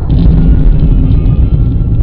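Vehicle on the move: loud, steady low rumble of engine and road noise.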